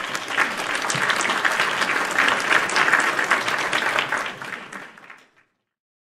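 Crowd applauding, a dense patter of many hands clapping that holds steady, then fades out about five seconds in.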